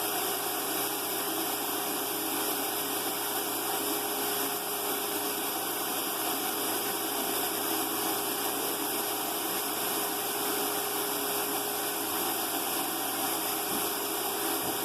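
A motor-driven blower running steadily, with a constant hum and an even rush of air; the kind of equipment used while spraying a coat of tub refinishing paint.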